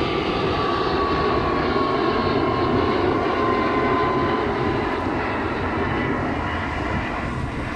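Airplane passing low overhead: a steady, loud rumble with an engine whine that slowly falls in pitch over the first few seconds.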